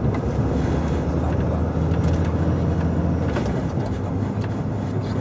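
Volvo FH 440 truck's 13-litre straight-six diesel running steadily under way, heard from inside the cab, with a low drone and road noise.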